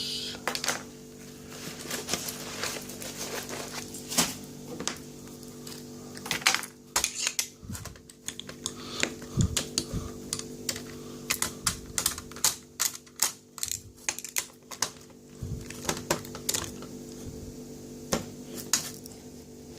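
Irregular light clicks and taps of tools against lock parts as a lock is handled and taken apart, thickest in the middle, over a steady low hum.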